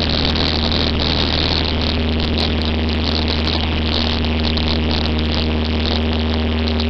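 Cessna 172's piston engine and propeller running at low taxi power: a steady, even drone with a deep hum and a constant higher tone above it.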